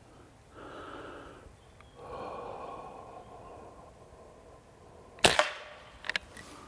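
Benjamin Sheridan Blue Streak .20 calibre multi-pump pneumatic air rifle firing a single shot: one sharp crack about five seconds in, after some soft breath sounds. Two quick, fainter clicks follow a little under a second later.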